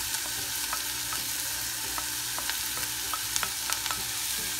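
Chopped onion and garlic sizzling in olive oil in a nonstick pot, with many small crackles and pops, while a wooden spoon stirs in the pot.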